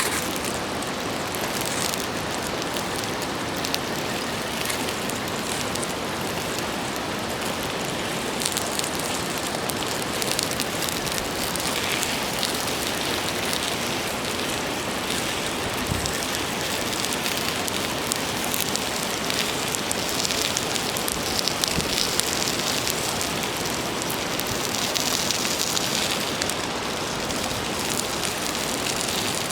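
Food sizzling steadily on an iron griddle plate over a campfire, with a dense hiss and scattered sharp crackles and pops.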